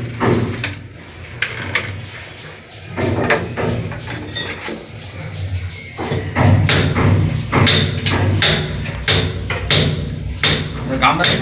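Irregular knocks and clatter of white plastic sewer pipe fittings being handled and pressed together, a tee worked onto a vertical drain pipe.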